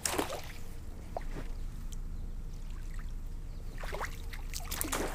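Splashing in shallow creek water as a person wades: one splash at the start and a couple more near the end, with quieter water sounds between.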